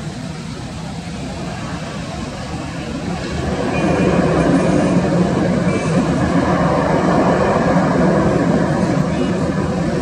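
An Airbus A330-343's Rolls-Royce Trent 700 jet engines run as the airliner rolls out along the runway just after touchdown. The engine noise is a steady rush that swells about three and a half seconds in and stays loud.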